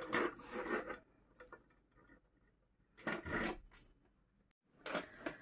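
Handling noise from sewing a crocheted bag onto a metal purse frame: three short bursts of rustling and light scraping as yarn is drawn through the frame's holes and the fabric and frame are shifted, with faint clicks.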